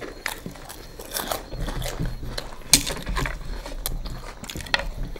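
Scattered small crunches and wet clicks of people eating straight off plates with their mouths, no hands used.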